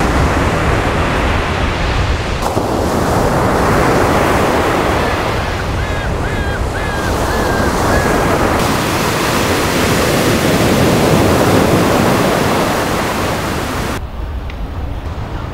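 Surf breaking on a sandy beach, swelling and easing, with strong wind buffeting the microphone. A few faint high chirps sound about six seconds in, and the sound drops somewhat quieter near the end.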